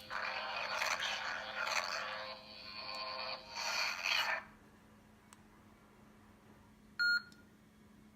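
Lightsaber sound board playing its blade effects through the hilt's small speaker: a buzzing hum that swells and falls for about four and a half seconds, then cuts off. A short electronic beep follows about seven seconds in.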